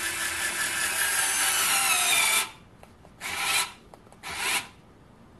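WORX WX240 cordless electric screwdriver driving a Phillips screw into timber on its middle setting, the motor's whine sliding down in pitch as the screw bites. The whine cuts off suddenly about two and a half seconds in as the tool shuts itself down under too much load. Two brief noisy bursts follow.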